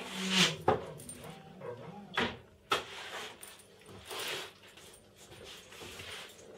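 Handling noise from an aluminium-extrusion CNC machine being set onto a wooden stand: clunks, scrapes and the rattle of its cable drag chain, with two sharp knocks about two seconds apart.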